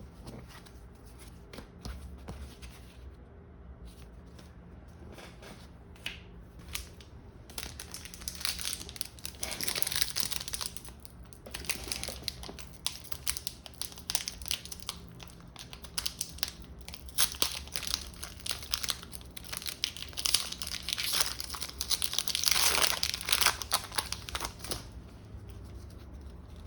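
Foil Pokémon booster pack wrapper being crinkled and torn open, with cards handled. The first several seconds are quieter, and the crinkling gets louder about eight seconds in.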